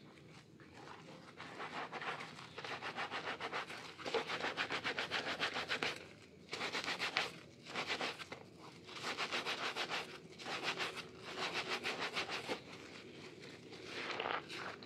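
A soaked sponge squeezed by hand in thick soap lather, giving wet squelching and fine crackling of foam. It comes in repeated squeezes of a second or two each, with short pauses between.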